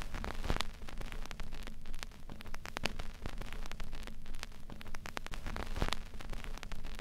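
Crackling static: a steady hiss with many irregular clicks and pops and a low hum underneath.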